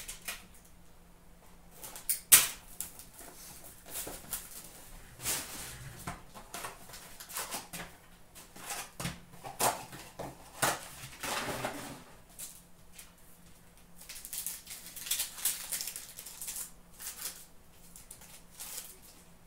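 Upper Deck Trilogy hockey card box being opened and its packs handled and torn open by hand: irregular rustling, crinkling and clicking of wrappers and card stock, with a sharp snap about two seconds in.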